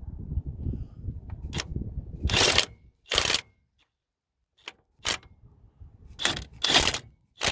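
Hand tools at work on a truck engine: short, sharp ratcheting strokes from a ratchet wrench tightening bolts, about six separate strokes with pauses between, over a low rumble of handling in the first few seconds.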